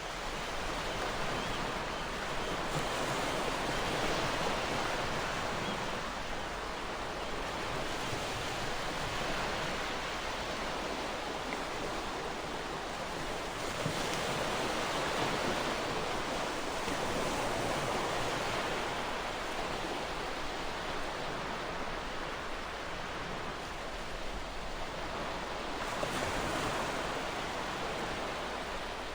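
Ocean waves breaking and washing on a shore, a continuous surf hiss that swells and eases every few seconds.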